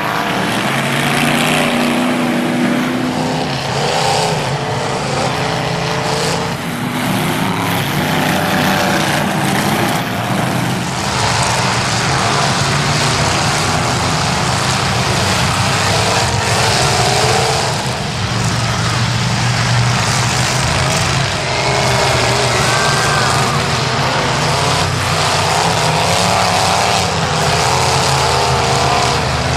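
Several demolition derby cars and pickups racing on a dirt track, their engines overlapping and revving up and down in a steady loud roar.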